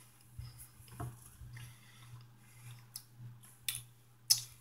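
Raw honeycomb with beeswax being chewed with the mouth closed: quiet, sticky mouth clicks and smacks, with a few sharper clicks in the second half.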